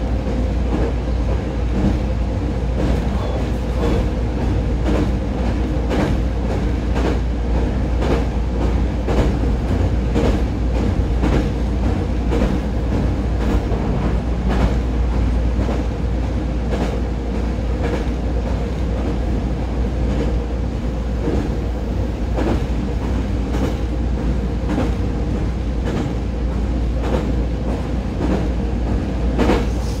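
JR Kyushu 819 series DENCHA battery-electric train running at a steady speed, heard from inside the car: a steady low rumble and hum with repeated wheel clacks over the rail joints.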